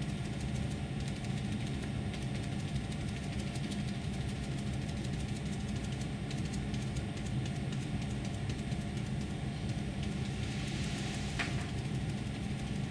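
Steady low room hum, with faint soft dabs of a damp sponge pressed onto paper and one small click about eleven seconds in.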